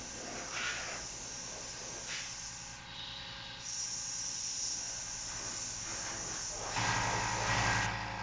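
Steady hiss of water spraying from a garden hose nozzle, cutting out briefly about three seconds in. Near the end it gives way to a low steady hum.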